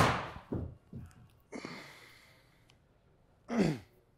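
Golf hybrid striking a ball off a hitting mat: one sharp crack that fades over about half a second, followed by a few softer knocks. Near the end comes a short voice sound falling in pitch, like a sigh.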